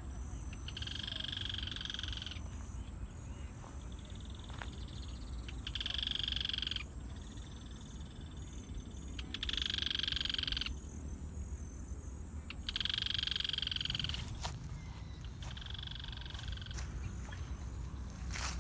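Frogs calling in repeated bouts of a second or so, about six times, each a buzzy pulsed call, over a steady low background rumble. Two sharp clicks come near the end.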